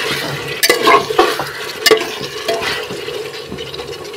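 Steel spatula stirring and scraping potatoes frying in oil and masala in an aluminium pressure cooker: irregular scrapes and knocks against the pot over a steady sizzle as the potatoes brown.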